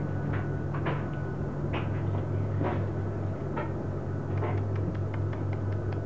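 Four-week-old Border Collie puppies moving about their pen, with scattered short squeaks and small clicks, over a steady low electrical hum.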